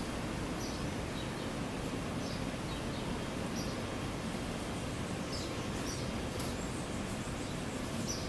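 Outdoor ambience: a steady low background rush with short, high bird chirps scattered through it every second or so.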